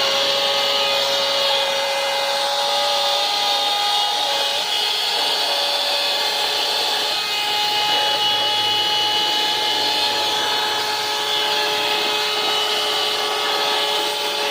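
Handheld 12-volt car vacuum cleaner, powered from the car's DC socket, running steadily: a high motor whine over rushing air.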